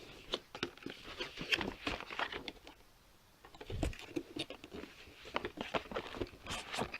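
Hands struggling to open a microphone's box packaging: irregular rustling and small clicks, a quieter pause about three seconds in, then a dull thump just before four seconds.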